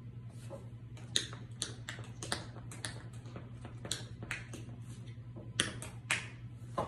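Patent-leather tap shoes tapping on a hard polished floor: an irregular run of sharp metal taps starting about a second in, a few struck harder than the rest. A steady low hum runs underneath.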